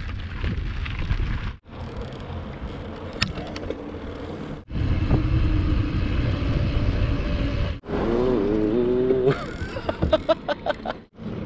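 Wind rumbling across the microphone while riding, in several short clips cut together. About eight seconds in a motor-like wavering tone briefly rises over it, followed by a quick run of sharp clicks.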